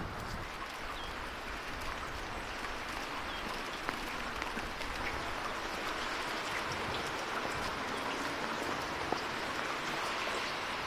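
Steady outdoor background hiss, even and unbroken, with a few faint high chirps and light ticks.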